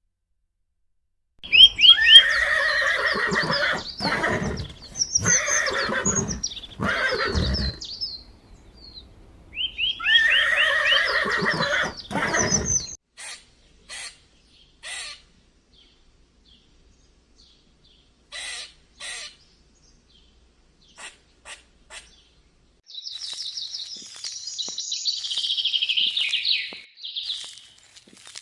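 A sequence of animal calls: about ten seconds of loud, pitched calls with falling notes, then a run of short, sharp separate chirps, then a few seconds of high, rapid twittering near the end.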